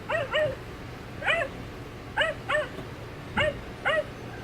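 Recorded dog barking played back by a children's touch-and-sound book's sound button: seven short yappy barks, mostly in quick pairs, spaced about a second apart.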